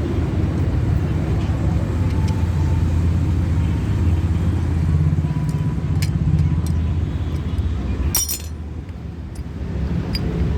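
Steady low engine hum of a vehicle running nearby, with scattered sharp metal clicks from hand tools and a short burst of metallic clatter about eight seconds in.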